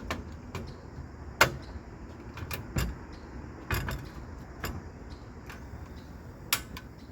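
Irregular sharp clicks and knocks, about eight in seven seconds with the loudest about a second and a half in, from handling a portable camp stove and its griddle, over a faint steady hiss.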